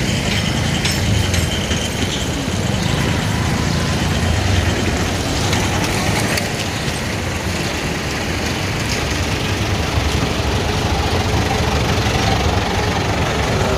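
City street traffic: vehicle engines running and idling with a steady low rumble, a bus engine idling close by.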